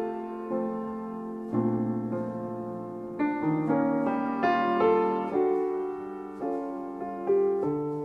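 Solo piano music: a slow, gentle melody with notes struck about every half second over held chords.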